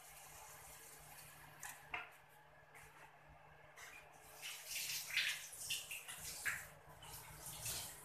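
Water running and splashing, like a kitchen tap, starting about four seconds in and coming and going irregularly over a faint, steady low hum.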